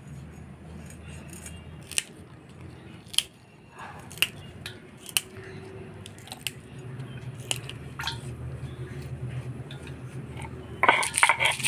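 Fresh green chillies being snapped and broken by hand: a handful of sharp, crisp snaps, spaced about a second apart, over a low steady hum. A woman's voice starts near the end.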